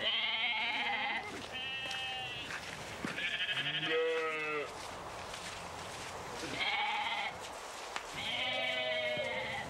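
A lamb bleating repeatedly: about five quavering bleats, each roughly a second long.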